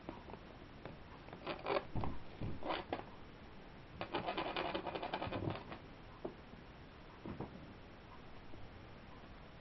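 Kittens' claws scrabbling on a rug as they pounce and tussle during play: short scratchy scuffles, then a quick run of scrabbling clicks about four to five and a half seconds in, and a few single scuffs after.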